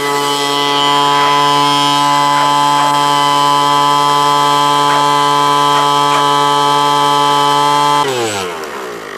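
Gas-powered handheld leaf blower running steadily, its carburetor freshly adjusted and the engine running again. About eight seconds in it is shut off and the engine's pitch falls as it spins down to a stop.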